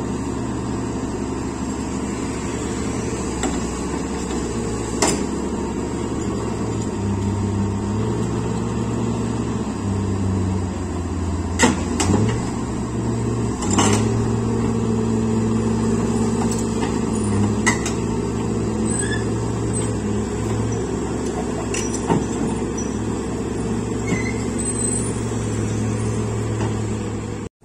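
Komatsu PC130F crawler excavator's diesel engine running under load as the machine climbs onto a low-bed trailer, its note stepping up and down as the hydraulics work. Sharp knocks come now and then as the steel tracks and undercarriage bump onto the trailer.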